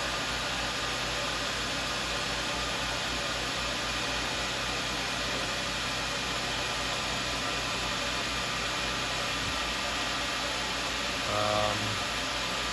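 Tormach CNC mill running, its spindle giving a steady whirring hiss. A low steady hum joins about three-quarters of the way through, and a short pitched sound comes near the end.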